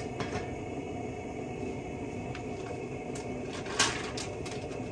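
Pot of water heating on the stove toward the boil: a steady low rumbling, with a few light ticks and one sharper clink near the end.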